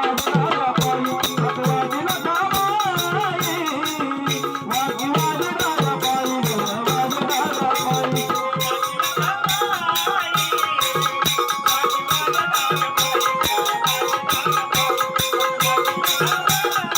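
Instrumental Marathi devotional folk music: a wavering melody line over a steady beat with rattle-like percussion. About halfway through, the melody gives way to held tones over a brisk, even ticking rhythm.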